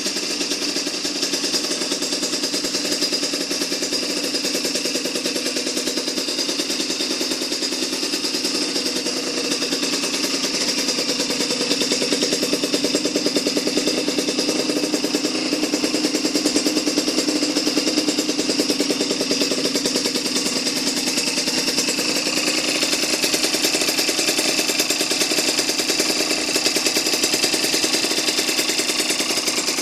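Puch Condor 3's 49cc two-stroke reed-valve engine, with a 21 mm Dellorto carburettor and Yasuni exhaust, running steadily with a fast, even pulse, a little louder from about twelve seconds in.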